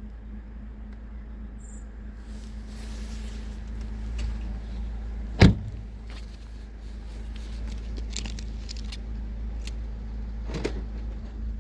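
Steady low hum with one sharp, loud thump about halfway through and a few lighter clicks and knocks near the end.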